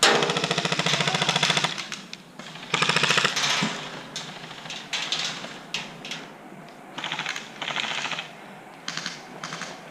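Airsoft electric rifle firing rapid full-auto bursts: a long burst at the start, another about three seconds in, and two short bursts near the end, with a few single clicks between.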